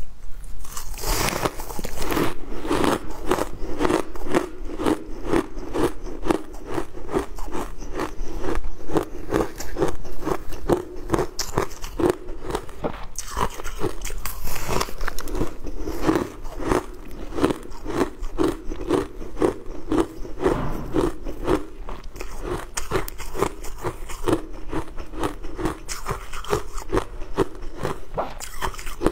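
Crushed coloured ice being bitten and chewed close to the microphone: a continuous run of sharp, rapid crunches as each mouthful is ground between the teeth.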